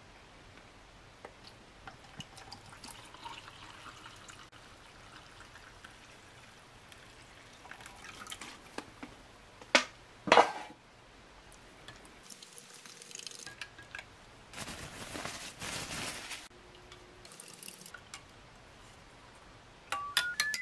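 Water poured from a plastic bottle into a drinking glass to mix sports-drink powder, then stirred with a spoon, with a couple of sharp knocks about ten seconds in and light clinks of spoon on glass near the end.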